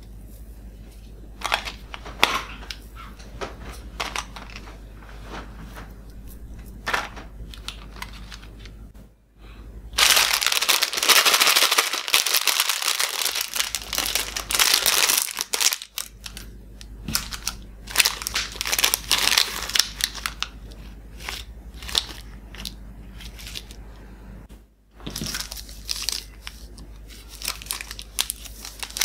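Plastic candy wrappers being crinkled and torn open by hand: scattered crackles, with a dense, loud stretch of crumpling from about ten to sixteen seconds in.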